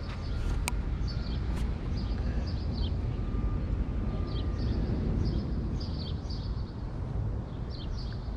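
Small birds chirping again and again over a steady low outdoor rumble, with two sharp clicks in the first two seconds.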